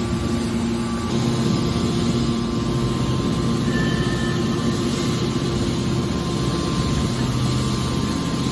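Hydraulic metal baler running, a steady machine drone with a constant hum from its pump and motor.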